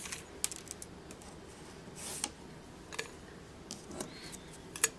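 Faint rustling of plastic-packaged paper craft pieces being handled, with a few scattered sharp crinkles and clicks.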